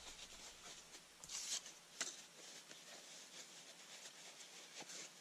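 Faint rustling of a paper towel rubbing excess metal polish off a small gun part. A louder swish comes about a second and a half in, and a light click about two seconds in.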